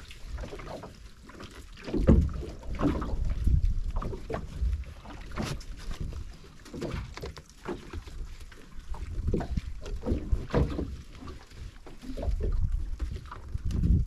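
Small fishing boat at sea: wind and water noise rumbling in uneven surges, loudest about two seconds in and again near the end.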